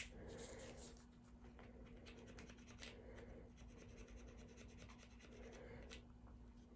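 Faint, irregular scratching of a small cleaning brush scrubbing the polymer frame of a Glock 19 pistol.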